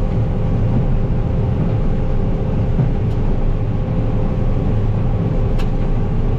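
Combine harvester running steadily, heard from inside its cab: a constant low drone with a steady hum above it and a couple of faint ticks.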